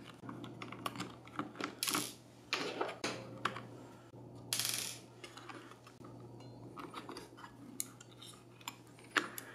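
Faint small clicks, taps and light scrapes from a screwdriver on the screws of a 1.8-inch hard drive's metal caddy inside a netbook, and fingers working the drive's flat cable. There is a brief rustle about halfway, and a steady low hum runs underneath.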